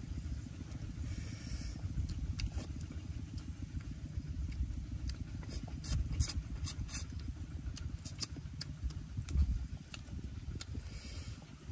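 Steady low rumble of wind buffeting the microphone. Over it come scattered sharp lip-smacks and chewing clicks from a man eating roasted fish with his fingers, bunched together about six seconds in.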